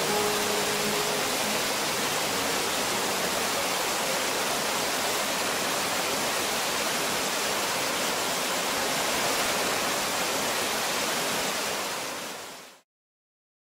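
Water rushing and splashing steadily through a turning mill water wheel. It fades out and stops abruptly about twelve seconds in.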